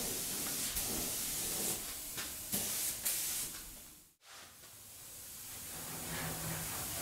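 Compressed-air paint gun spraying black paint in several short hissing bursts, the longest about three seconds in. The sound drops out suddenly after about four seconds, leaving a faint steady hiss.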